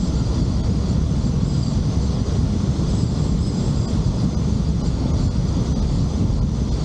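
Steady low road rumble of a vehicle travelling along a road, with a faint high whine above it.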